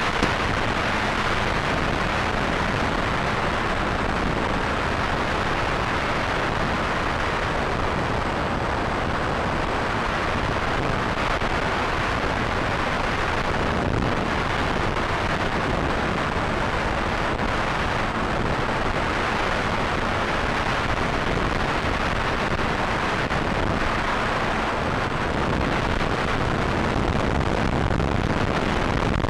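Steady rushing wind noise on the microphone, with a faint low hum underneath.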